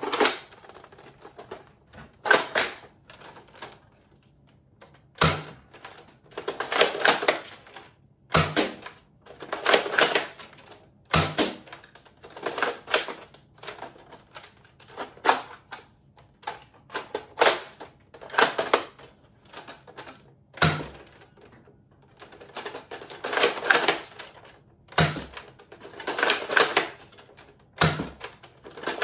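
Plastic foam-dart toy blaster being worked by hand. Its mechanism clacks and rattles in short stretches, and a sharp snap comes every few seconds.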